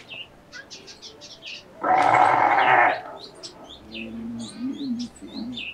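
A goat bleats once, loud, for about a second, over small birds chirping throughout. A quieter low wavering sound follows.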